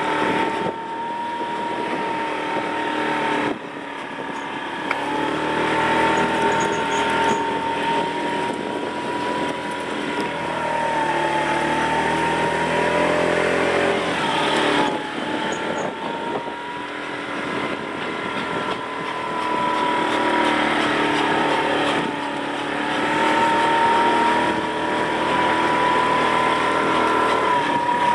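Motorbike engine running at a steady cruising speed, its even note wavering slightly and dipping briefly twice near the middle.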